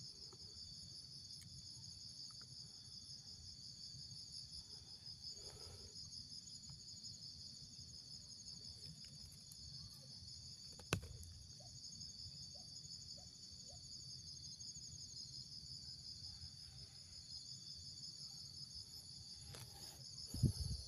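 Steady high-pitched chorus of chirping insects, crickets or similar, with a fast even pulse. A single sharp click sounds about halfway through, and a short low thump comes near the end.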